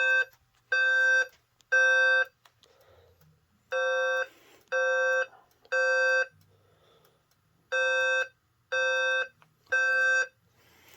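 Simplex fire alarm speaker sounding a Notifier code-3 (temporal-three) horn tone: three short buzzy beeps, a pause, then the next set of three, repeated three times. The three-pulse code is the standard fire evacuation signal.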